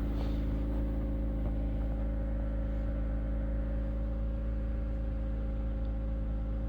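Car engine idling steadily while it warms up in freezing weather: an even, low hum.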